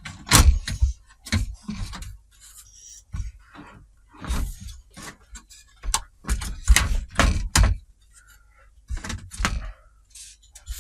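Hard plastic TV parts being lifted out and handled: a string of irregular knocks, clicks and scrapes, with the loudest clusters about four seconds and about seven seconds in.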